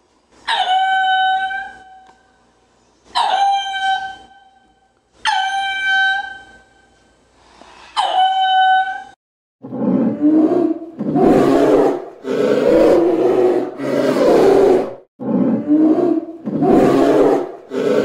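A ring-tailed lemur gives four drawn-out, pitched calls a couple of seconds apart. From about ten seconds in, a polar bear growls in a series of loud bursts, each about a second long.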